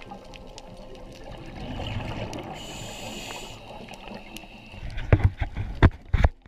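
Underwater sound picked up through a diving camera: a steady watery rush with a short hiss near the middle. From about five seconds in comes a quick, irregular run of loud, low bubbling thumps.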